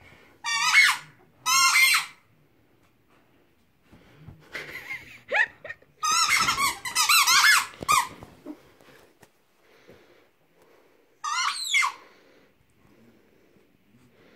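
A dog's squeaky toy ball squeaking as the dog bites down on it: two short squeaks near the start, a rapid run of squeaks lasting about two seconds around the middle, and one more squeak later on. Each squeak slides up and down in pitch.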